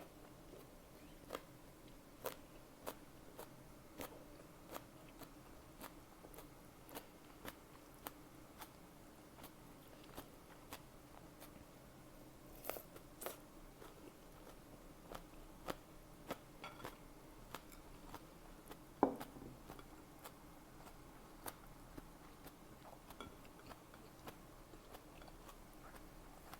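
Close-miked chewing of a beef-tongue salad with nori: soft, crisp crunches and mouth clicks about one or two a second, with one louder crunch about two-thirds of the way through.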